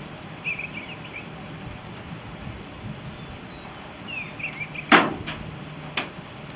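Faint high chirping twice, then one loud, sharp knock about five seconds in, followed by a couple of lighter clicks.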